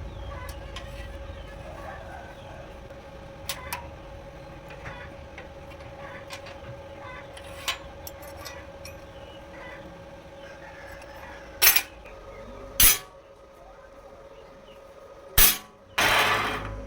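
Metal parts being handled on a workbench: light clinks, then three loud sharp knocks a second or more apart and a longer rattling clatter near the end, over a steady faint hum.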